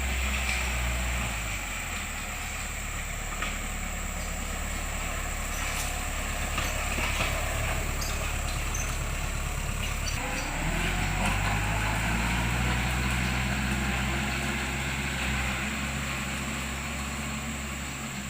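Engine of a machine spreading fertilizer, running steadily; its note shifts and grows stronger about halfway through.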